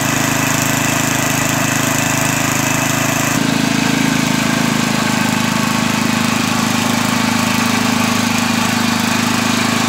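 Briggs & Stratton 8 hp 190400-series single-cylinder flathead engine on a snowblower, running steadily and evenly after a new head gasket and carburettor adjustment, its high speed set to about 3200 rpm. About three seconds in the sound shifts slightly as the machine blows snow out of the chute.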